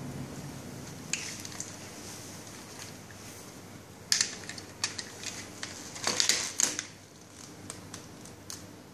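Clicks, knocks and rattles of a hand-held plastic and metal fiber-optic clamping tool being opened and taken apart: scattered sharp clicks about a second in and again around four to five seconds, then a quick cluster of clicks and scraping around six seconds.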